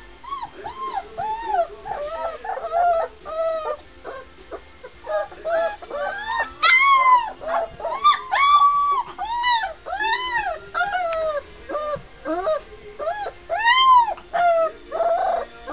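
Three-week-old white Swiss shepherd puppies whimpering and squealing: a run of short, high-pitched cries that rise and fall, about two a second, loudest in the middle and near the end.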